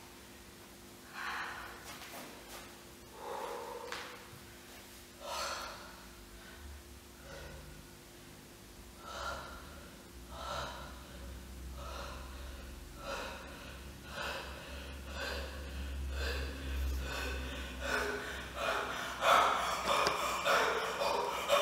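A person breathing audibly in sharp, breathy inhalations and exhalations, at first about every two seconds, then coming faster and growing louder toward the end.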